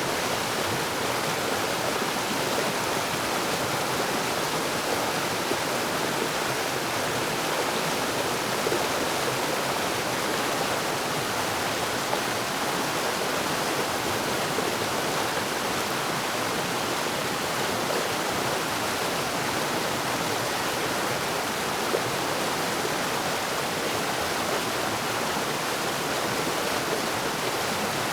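Stream rapids: fast water rushing and splashing over rocks in a steady, continuous roar.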